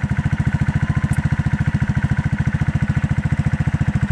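Rusi RFI 175 motorcycle engine idling steadily through an aftermarket Akrapovic M1 slip-on exhaust with its dB killer fitted, giving an even, rapid beat of low exhaust pulses. On the recording the exhaust note sounds somewhat nasal.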